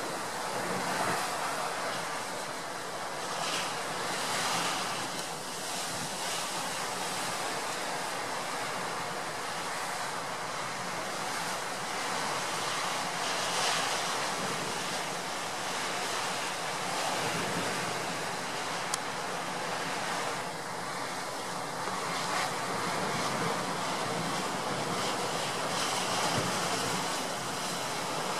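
Heavy storm surf breaking on a rocky shore: a continuous rushing noise that swells and eases, with strong wind blowing across the microphone.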